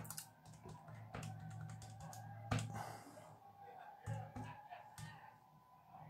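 Calculator keys clicking in scattered presses as a division is keyed in, over faint background music.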